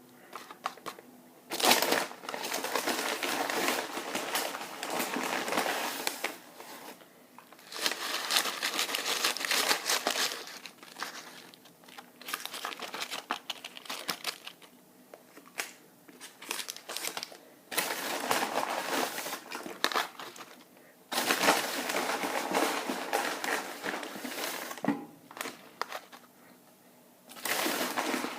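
Close-up crinkling of food packaging being handled and unwrapped, in repeated bursts of a few seconds with quiet gaps between.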